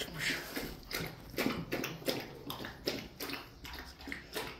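Puppies scrabbling in a plastic tub: irregular scratches and knocks of paws and claws on the plastic and the straw as one climbs out.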